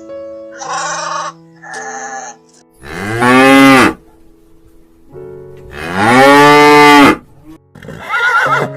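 A cow mooing twice, long loud calls that rise and fall in pitch, after two short bleats in the first couple of seconds, over background music with steady tones.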